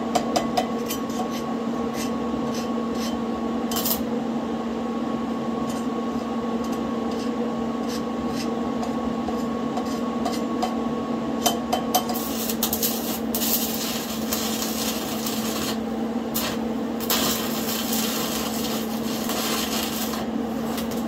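Stick (arc) welding on steel plate: over a steady hum, scattered scratches and clicks, then from about halfway the crackling sizzle of the welding arc, broken by a few short gaps, as the bracket is tack-welded.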